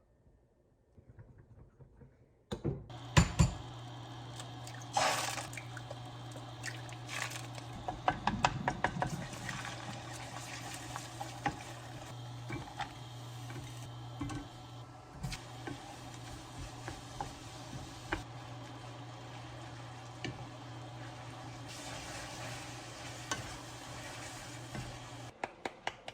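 Kitchen work sounds: water and liquid being poured or stirred, with short clinks and knocks of utensils and dishes. Starting about two and a half seconds in, they sit over a steady low hum that briefly drops out near the end.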